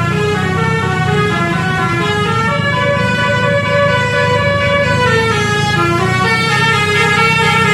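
Basuri telolet bus horn playing a melody: stacked horn notes stepping up and down in pitch, a new note every half second or so, over a steady low rumble.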